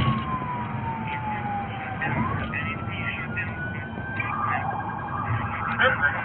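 Police siren wailing: one slow fall in pitch, then a rise. About four seconds in it switches to a fast yelp, over the low road and engine noise inside a police vehicle.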